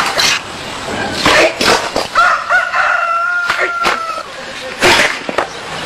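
Bricks struck with a bare palm, giving a series of sharp cracks, several in quick pairs. A rooster crows once in the middle.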